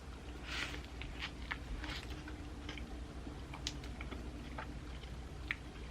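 Quiet chewing of a sub sandwich with ham, pickles, peppers and onion: soft crunches and scattered small mouth clicks, over a low steady hum.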